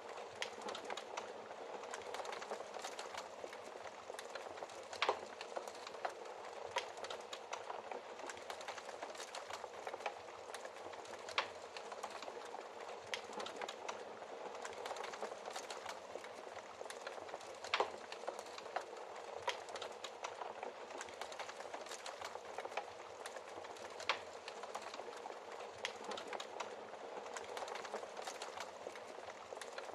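Wood fire burning in a fireplace: a steady hiss and rustle of flames with irregular sharp crackles and pops, a few louder snaps among them.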